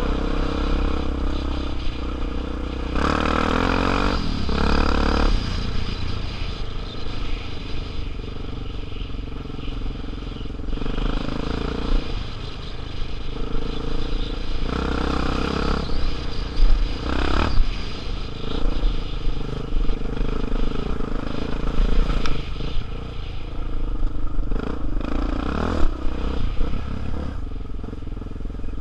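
Off-road motorcycle engine running at low trail speed, its note wavering with the throttle, with a few louder bursts, about three to five seconds in and again around fifteen and seventeen seconds. Clatter from the bike over the rough track.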